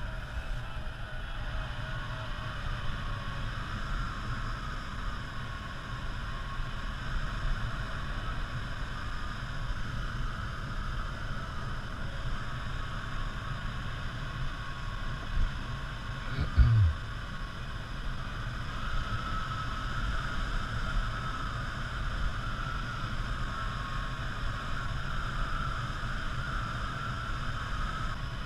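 Steady in-flight noise inside the cockpit of an ASK 14 motor glider: a low rumble with a rushing hiss of air over the canopy. A single dull thump sounds about 16 seconds in.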